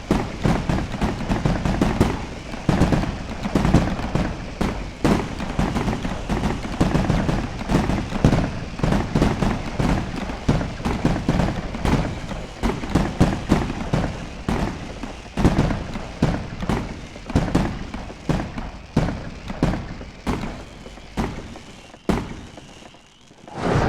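Fireworks going off in rapid succession, a dense run of sharp bangs and crackles that thins out and dies down near the end.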